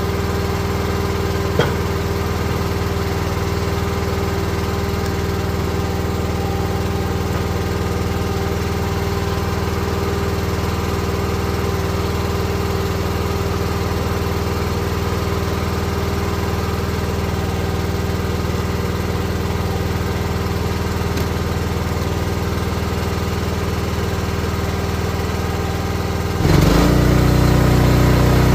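Small gas engine of a Wolfe Ridge 28-ton log splitter running steadily, with one sharp click about a second and a half in. Near the end the engine note drops and gets louder as it takes on load.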